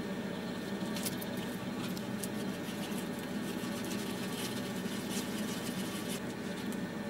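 Wooden craft stick stirring and scraping two-part epoxy on a piece of cardboard: faint, irregular light scratches and clicks over a steady low hum.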